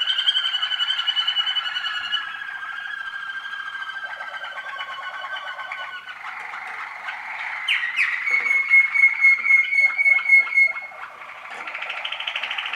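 Young Waterslager song canaries singing a continuous run of rapid rolling, bubbling trills. About eight seconds in, a clear whistled note breaks in suddenly and is held for about three seconds before the trilling resumes.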